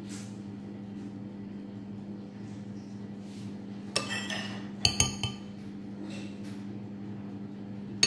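A spoon clinking against a ceramic bowl as filling is scooped out: a click about four seconds in, a quick cluster of clinks around five seconds, and one sharp clink near the end, over a steady low hum.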